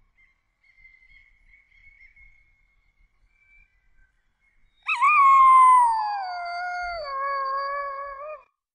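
Canine howling: a faint, thin, high howl held for a couple of seconds, then about five seconds in a loud howl that starts high, slides down in pitch and drops a step lower before it cuts off.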